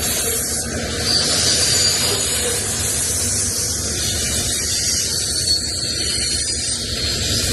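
Long Canadian Pacific freight train's cars rolling steadily past, a continuous loud rushing of steel wheels on the rails.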